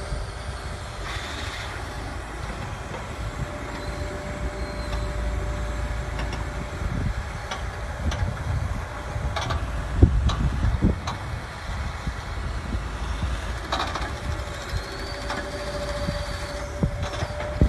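Hydraulic excavator's diesel engine running steadily under working load with a thin steady whine, broken by a few sharp knocks, the loudest about ten seconds in.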